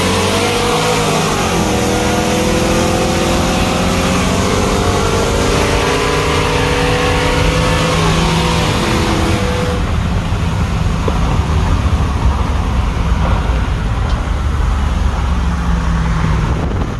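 Chevy Silverado pickups with 6.2-litre LS V8s accelerating hard side by side in a roll race, heard from one cab with the window open. The engine note climbs and drops back at upshifts about a second and a half and eight and a half seconds in. After about ten seconds it gives way to rushing wind and road noise.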